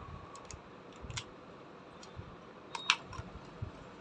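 A few light clicks and taps from a cardboard product box being held and turned in the hand, the loudest a quick double click about three seconds in.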